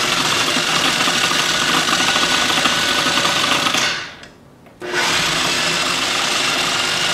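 Food processor motor and blade running, chopping fresh strawberries toward a puree. It runs for about four seconds, stops briefly, then starts again and keeps running.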